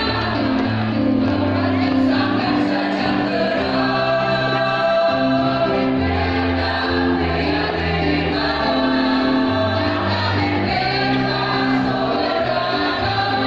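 A choir singing in parts, holding notes that change every second or so over a steady low bass line.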